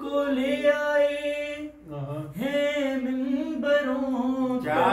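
A man singing a manqabat, an Urdu devotional poem, unaccompanied, in two long held phrases with a short pause about two seconds in.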